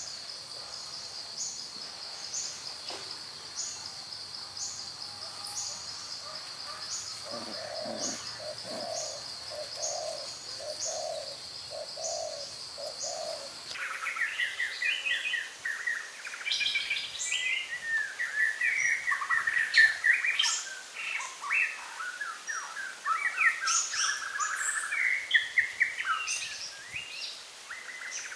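Birds chirping and calling. In the first half a steady high trill runs with a short run of low, evenly repeated calls. About halfway through it cuts off abruptly and busy, varied chirping takes over.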